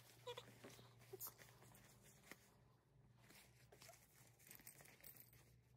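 Near silence: faint rustling of a dog's raincoat and a few small clicks as it is handled, over a low steady hum.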